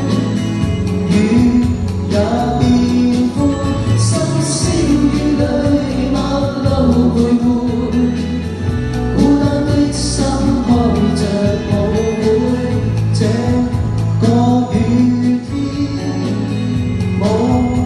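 A man and a woman singing a pop ballad duet into microphones, amplified, over continuous backing music.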